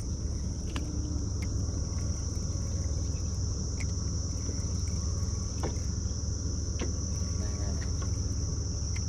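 Steady high-pitched drone of an insect chorus, unbroken throughout, over a constant low rumble, with a few faint ticks.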